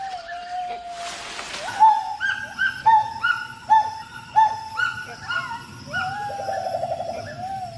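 Gibbon calling: a long held hoot, then a run of short rising whoops about two a second, and a quick bubbling trill near the end. A short burst of noise comes about a second in.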